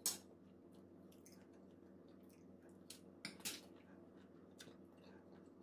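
A person eating quietly: a few short, sharp mouth and cutlery noises, the loudest right at the start as a spoonful goes to the mouth and more about three seconds in, over a low steady hum.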